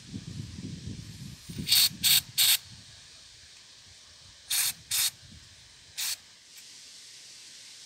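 Aerosol can of silicone spray hissing through its straw nozzle in six short squirts: three quick ones about two seconds in, then three more spaced out between four and a half and six seconds. The silicone is sprayed onto a rusted, seized pivot pin to free it.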